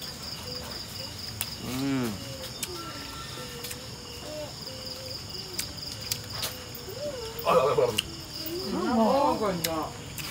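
Crickets chirping, a steady high pulsing trill with no break. Over it, people's voices come in faintly about two seconds in and louder a few seconds before the end.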